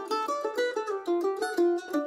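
Background music: a quick tune of picked notes on a plucked string instrument.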